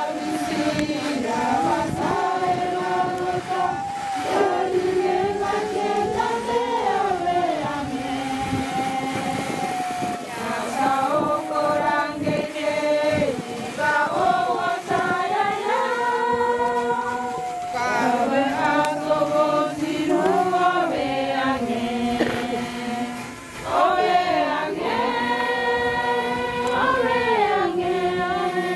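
A group of voices singing together in harmony, a choir-style hymn with long held notes.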